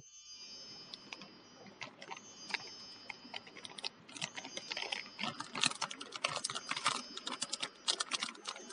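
Rapid, irregular clicking and tapping of a utensil against a steel vessel with powder in it, growing denser and louder about four seconds in.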